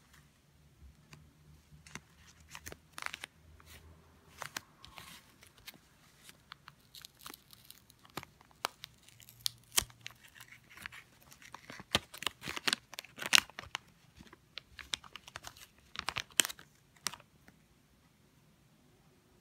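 Hands handling plastic packaging and small parts during a computer memory upgrade: irregular crinkling, tearing and sharp clicks, busiest in the second half and stopping shortly before the end.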